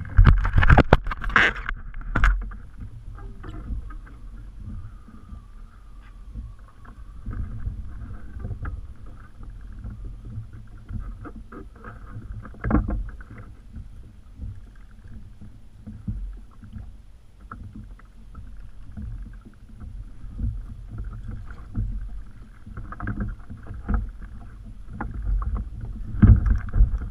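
Water slapping and lapping against a kayak's hull, with wind rumbling on the microphone. A flurry of loud knocks and clatter in the first couple of seconds, then scattered single knocks.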